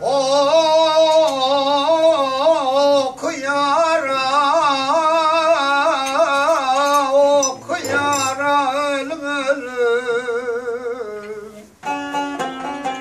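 A man singing a Turkish folk song in long, ornamented phrases with a wavering pitch, accompanied by a plucked cümbüş. The voice breaks off near the end and the cümbüş plays on alone.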